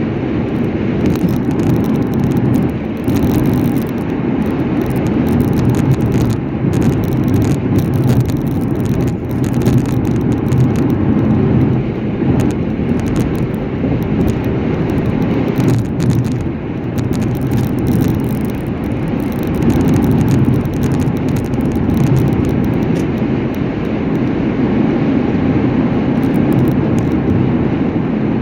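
Steady rumble of a vehicle travelling at speed, with no letup.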